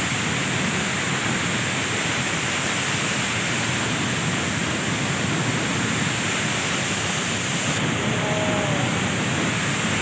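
Large waterfall close by, its falling water rushing as a loud, steady, unbroken noise.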